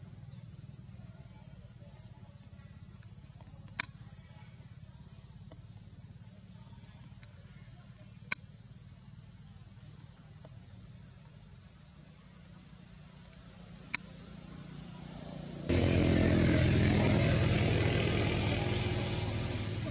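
Steady high-pitched insect drone of the forest, over a low hum, broken by three sharp clicks. About three-quarters of the way through, a loud rumbling noise starts suddenly and slowly fades.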